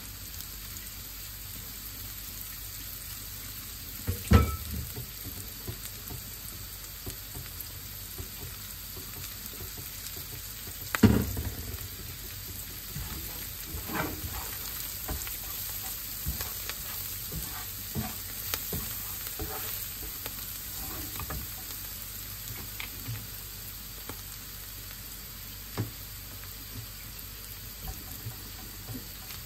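Chopped vegetables and greens frying in oil in a nonstick frying pan, a steady sizzle. Two loud knocks about four and eleven seconds in, then a wooden spatula scraping and tapping on the pan as it stirs.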